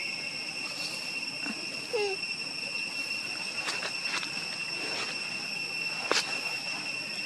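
Insects droning steadily in two high-pitched tones, with a few scattered clicks and a brief falling call about two seconds in.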